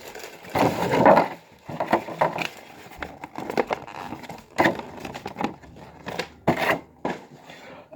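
Toy-box packaging being handled and crumpled: irregular rustling and crinkling with scattered sharp clicks.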